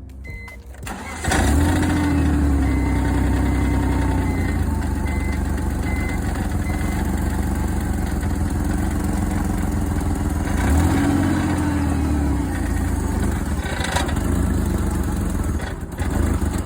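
BMW E46 engine starting about a second in, then running steadily, with a brief rise in revs around eleven seconds in. It will not hold an idle for long before dying, which the owner suspects comes from running the wrong grade of petrol.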